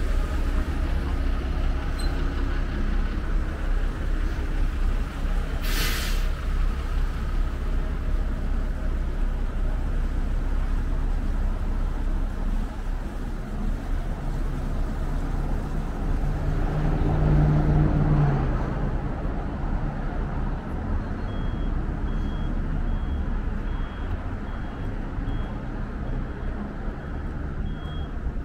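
City traffic with buses: a steady rumble of engines, with one short, sharp air-brake hiss about six seconds in and a heavier vehicle passing louder about two thirds of the way through. Near the end a high beep repeats a little more than once a second.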